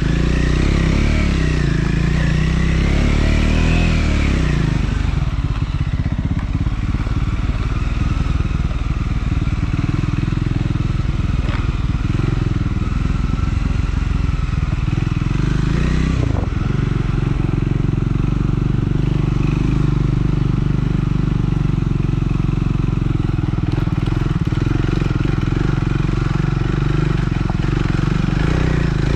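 Triumph Scrambler 400 X's single-cylinder engine running on the move. It rises in pitch over the first few seconds, drops back, then holds a mostly steady pace.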